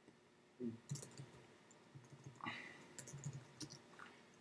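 Computer keyboard typing: faint, irregular key clicks as a word is typed.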